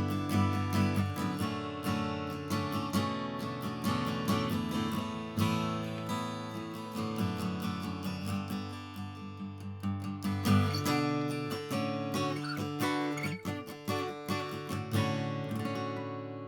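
Collings C100 acoustic guitar, with mahogany back and sides and a Sitka spruce top, strummed through a series of chords. The last chord is left to ring out and fade near the end.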